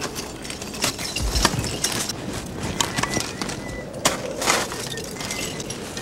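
Ice axe picks and crampon points striking a frozen waterfall: irregular sharp hits with ice chipping and breaking away, the longest crunch about four and a half seconds in.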